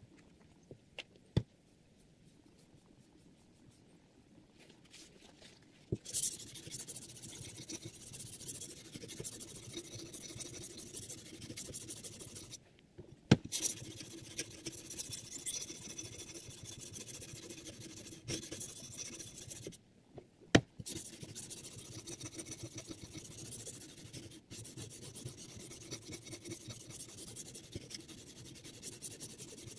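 Sharpening stone on the guide rod of a Hapstone R2 sharpener, rasping back and forth along a clamped knife blade in rapid strokes, sped up threefold. A few quiet seconds with a couple of sharp clicks come first; the scraping starts about six seconds in and runs with two short breaks, each ended by a sharp click.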